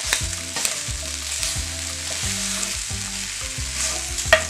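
Pork pigtail pieces sizzling in a cast-iron skillet as they are stirred with a wooden spoon. The spoon knocks against the pan a few times, most sharply near the end.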